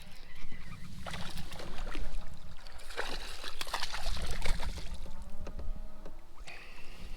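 Water splashing and trickling as a hooked smallmouth bass thrashes and is landed. The splashing is busiest in the middle, over a low steady rumble.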